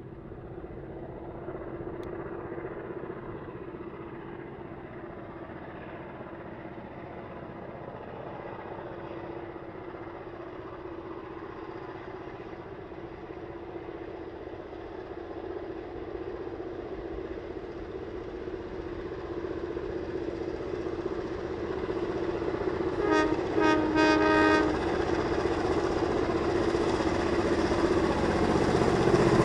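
Heritage diesel locomotives (42107, 4464 and 4702) approaching under power, their engines' steady drone growing louder as they come closer. A single locomotive horn blast of under two seconds sounds about three-quarters of the way through.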